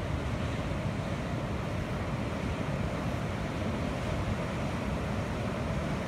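Steady rushing of fast, muddy flash-flood runoff churning through a normally dry desert wash channel.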